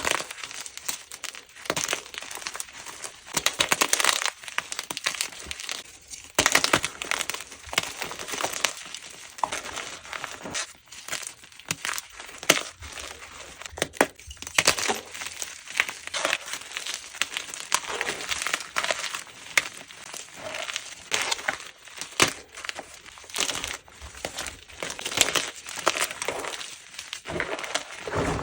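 Plain gym chalk blocks being crushed and crumbled, a dense run of crunches and crackles coming in spells with short pauses.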